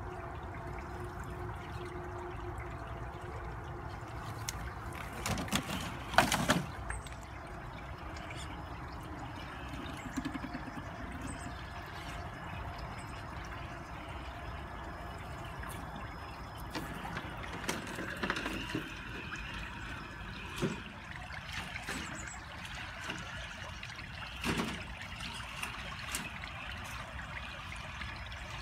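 Shallow stream trickling steadily, with a few short knocks, the loudest a cluster about six seconds in.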